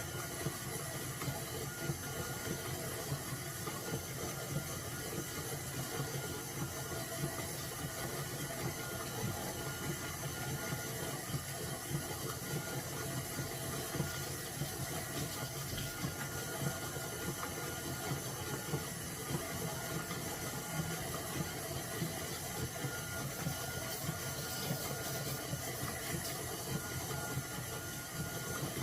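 Stand mixer motor running steadily, its whine holding several steady tones, as it churns cultured sour cream into butter.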